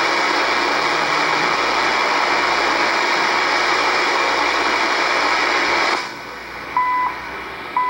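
Shortwave receiver's speaker in AM mode giving loud static hiss as the dial is swept across the 3 MHz band. About six seconds in the hiss drops away and the CHU Canada time signal on 3330 kHz comes in: two short beeps one second apart, its second pulses.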